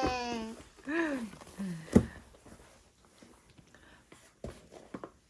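A small child's voice trailing off from laughter, then a short vocal sound about a second in, followed by a sharp knock at about two seconds; afterwards mostly quiet with a couple of faint taps.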